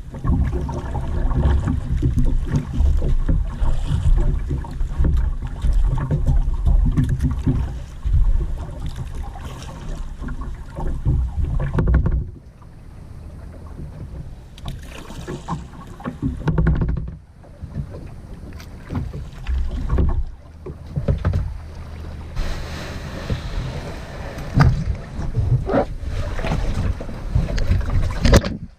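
Wind buffeting the microphone in gusts, a low uneven rumble that comes and goes, with scattered knocks and rustles.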